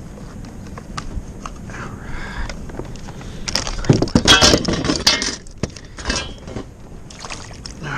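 Hard objects clinking and clattering as fishing gear is handled, with scattered clicks and one longer, louder spell of rattling about four seconds in.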